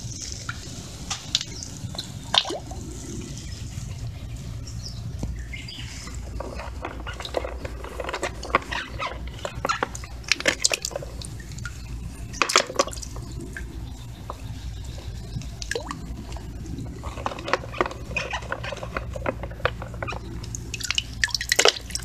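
Water dripping and trickling off a wet hand into a bucket, with scattered small clicks as giant mud snail shells knock together in the hand. The clicks come in clusters, busiest in the middle and near the end, over a steady low hum.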